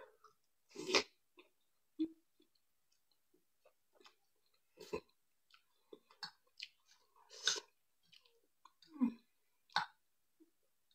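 Quiet chewing of spicy instant noodles and fried egg, heard as short scattered mouth sounds every second or so, with a few faint clicks of a fork on the plate.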